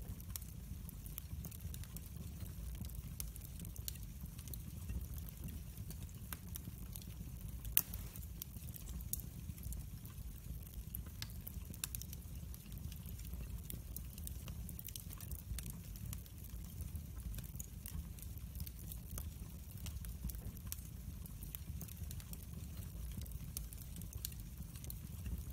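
Split logs burning in a fireplace, crackling and popping with scattered sharp snaps over a steady low rumble; one louder pop about eight seconds in.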